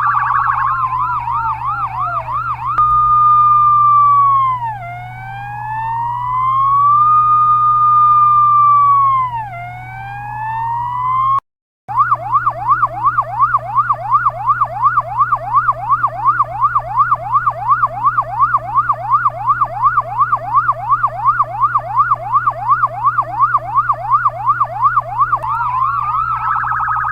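Chinese ambulance electronic siren cycling through its tones. It opens with a fast yelp, then a slow wail that falls and rises, cuts out briefly about halfway, and runs a long fast yelp of about three rising sweeps a second before changing to a slow tone near the end. A steady low hum runs underneath.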